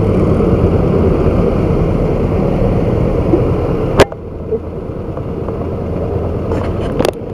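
Motorcycle engine running at low speed, with a sharp click about four seconds in, after which the sound drops quieter.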